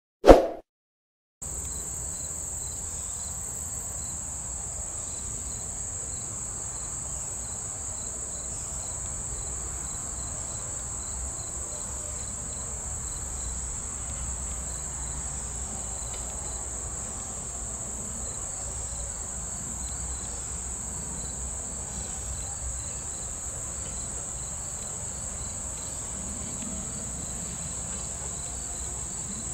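A short loud pop right at the start, then a steady, high-pitched chorus of insects buzzing without a break.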